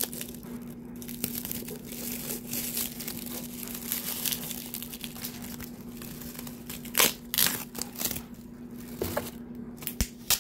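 Packaging being unwrapped by hand: continuous crinkling and rustling with small crackles, a few louder ones about seven seconds in.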